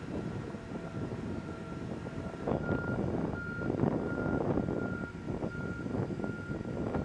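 Engine of a large wheeled straddle-carrier transporter running as it carries a load slowly, over a steady high tone. About two and a half seconds in, its motion warning alarm starts beeping, roughly two beeps a second.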